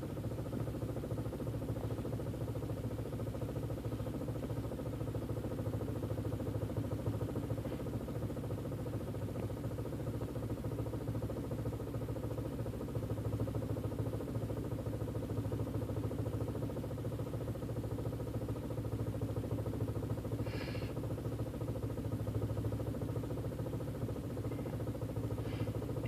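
VW 1.8T (AWW) turbocharged four-cylinder engine idling roughly, steady without revving.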